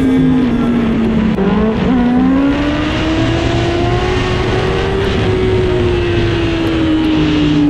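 Kawasaki Ninja sport motorcycle's engine running at cruising revs, heard from the rider's helmet camera with wind noise. The engine note dips briefly about two seconds in, then rises slowly and eases off again.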